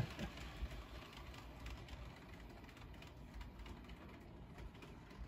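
Faint, irregular clicking over a low rumble from an HO scale model train running on its track.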